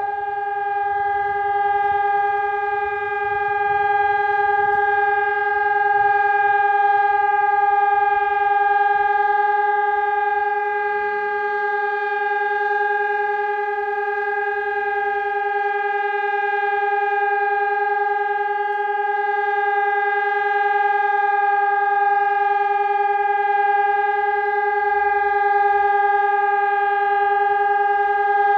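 Emergency alarm sounding one steady, unbroken tone at a fixed pitch, without rising, falling or pulsing.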